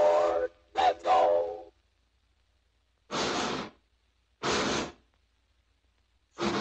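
Steam locomotive whistle sound effect blowing a chord, ending about half a second in, then one more short toot. Two short hissing whooshes of steam follow, about a second and a half apart, and steady steam chuffing starts just before the end.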